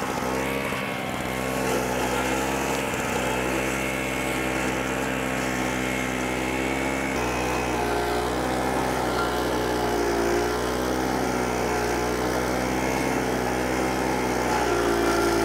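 AS-Motor AS 63 Allmäher high-grass mower running steadily under load as it cuts through dense, tall weeds. The engine's pitch wavers slightly as the load changes.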